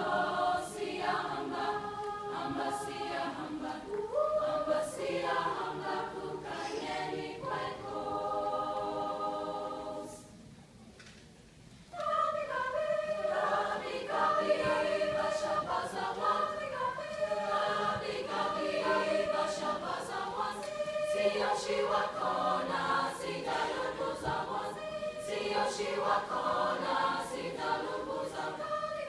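Mixed high school choir singing in parts. About ten seconds in, a held chord stops and the voices are silent for about two seconds, then come back in together.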